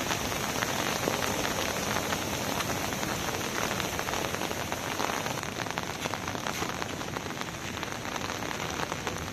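Heavy rain falling on a muddy road: a steady hiss of countless small drop hits.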